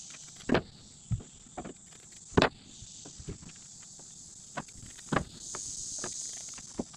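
Gloved hands rustling, tapping and pressing pieces of chopped strand fiberglass mat onto a pickup's steel bed floor, a few sharp rustles standing out. Under them a steady high insect drone that swells for a moment near the end.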